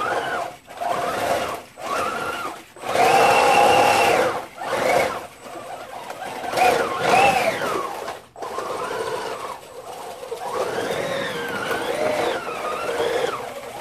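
3D-printed RC snowcat's drive motor and belt transmission whining in several bursts of a second or two, the pitch rising and falling with the throttle, while the vehicle carries a 24-pack of bottled water (about 12 liters).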